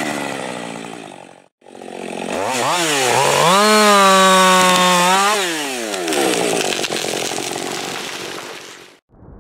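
Husqvarna two-stroke chainsaw felling a hard maple: the engine winds down, breaks off briefly, then revs back up to a held full-throttle pitch in the cut for about two seconds before dropping back. A noisier stretch without a clear engine pitch follows.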